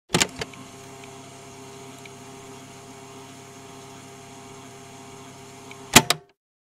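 Steady electrical hum with hiss, bracketed by sharp clicks: two at the start and two loud ones about six seconds in that cut the hum off.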